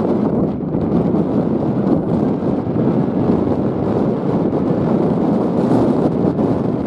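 Strong wind buffeting the microphone: a loud, steady rumbling noise with no distinct events.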